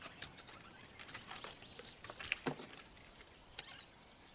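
A lion's claws scratching and gripping tree bark as it climbs: faint scattered scratches and crackles, with a few sharper cracks about two and a half seconds in.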